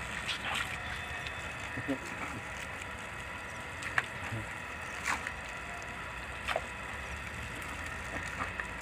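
Steady hiss of water spraying from a garden hose, with a few short sharp clicks scattered through it as a German Shepherd jumps and snaps at the jet.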